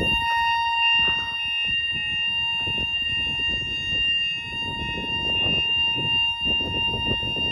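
Level crossing audible warning alarm sounding as the barriers lower: a steady, high-pitched electronic tone, with low noise underneath.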